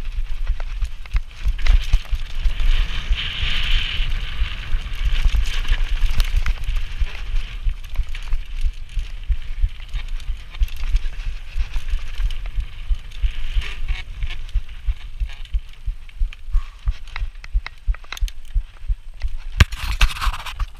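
Mountain bike riding fast down a dirt trail: wind buffeting the handlebar-mounted camera's microphone as a steady low rumble, with tyre noise on the dirt and the bike rattling and knocking over bumps. The knocks come thick and sharp near the end.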